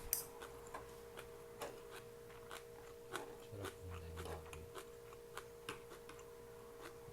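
Faint mouth sounds of eating: irregular small clicks and smacks of chewing, over a steady faint hum.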